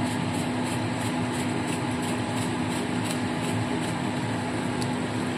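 Steady kitchen hum and hiss, with a low, even drone underneath.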